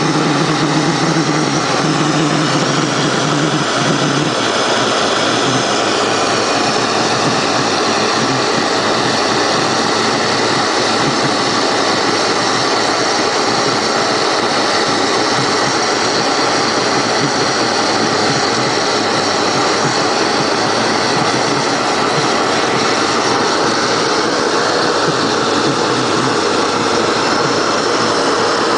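Heavy-oil jet burner firing in a furnace: a loud, steady rushing noise of forced flame, with a low hum that drops out about four seconds in.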